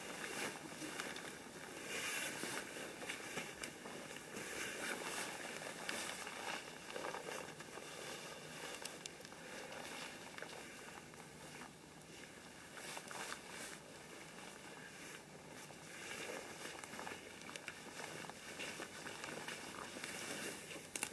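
Tarp rustling and crinkling in uneven swells as it is pulled and pegged out, with a few faint clicks.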